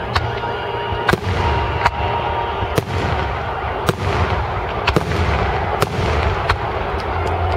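Fireworks salute shells bursting overhead, with sharp bangs about once a second over a steady background of noise.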